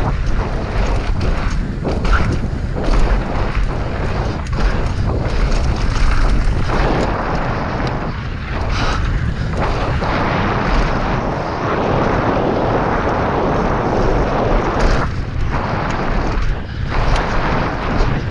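Wind buffeting the microphone of a camera on a mountain bike descending a dirt trail at speed, with a steady tyre rumble and the bike knocking and rattling over bumps. Midway the tyres run across a wooden bridge.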